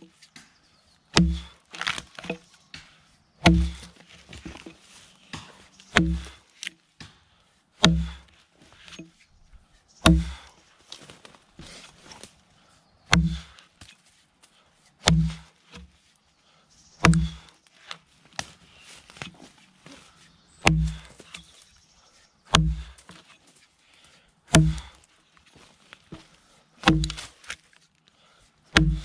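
An axe chopping into a green softwood log with a regular swing, a solid biting strike about every two seconds, some fourteen in all. Lighter ticks of flying chips fall between the strikes.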